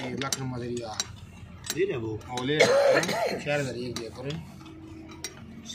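Scattered metal clinks and taps of hand work on a combine harvester gearbox: steel parts and tools knocking against one another at irregular intervals.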